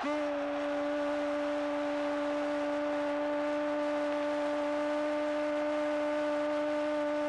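A single steady, held tone with overtones that starts sharply and stays at one pitch throughout, over an even haze of crowd noise.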